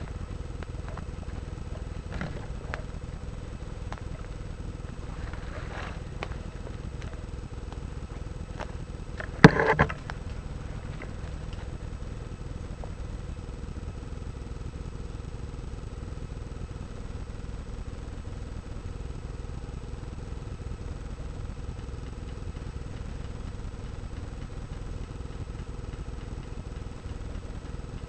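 Steady low rumble of handling and movement noise from a camera mounted on an airsoft sniper rifle. A few faint knocks and rustles come in the first few seconds, and one loud, short clatter about nine and a half seconds in.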